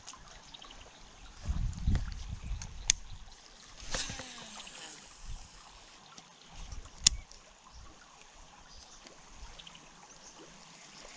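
Wind gusting on the microphone in low rumbles, with two sharp clicks, one about three seconds in and one about seven seconds in, over a faint trickle of creek water.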